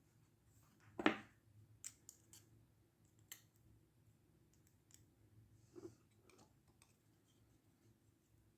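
Scattered light clicks and taps of small hand tools on a workbench. The loudest comes about a second in and the others are fainter, over a faint steady low hum.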